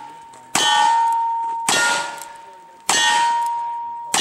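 Single-action revolver shots at steel targets: three shots about a second apart and a fourth at the very end. Each crack is followed by the long, clear ring of a steel plate being hit.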